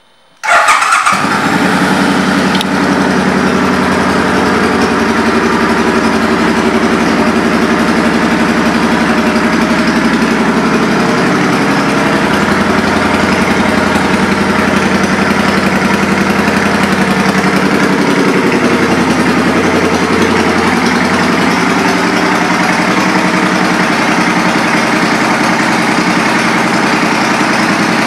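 Suzuki Boulevard M50's 805 cc V-twin, fitted with aftermarket Cobra exhaust pipes, started on the electric starter: it catches within about half a second, flares briefly, then settles into a steady loud idle.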